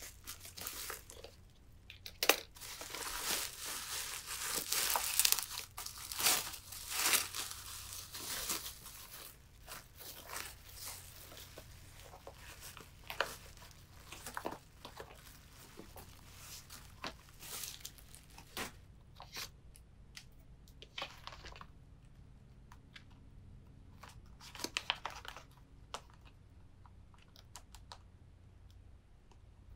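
Plastic bubble wrap being cut with scissors and pulled off packaged items: dense crinkling and crackling with sharp clicks. After the first several seconds the handling becomes sparser and quieter, with a short burst of crinkling near the end.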